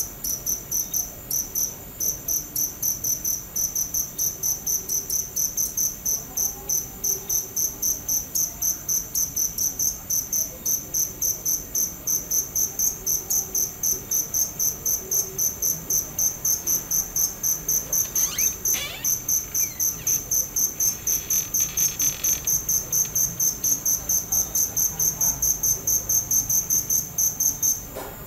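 A cricket chirping in a steady, even rhythm of short high-pitched chirps, about three or four a second, stopping near the end.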